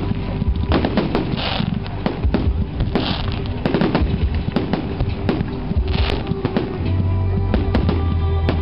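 Fireworks display: a rapid series of sharp bangs and crackling as aerial shells burst, with music playing underneath that swells near the end.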